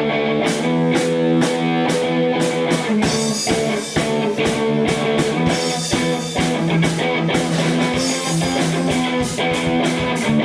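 Rock band playing: guitar chords over a drum kit keeping a steady beat of about two strokes a second.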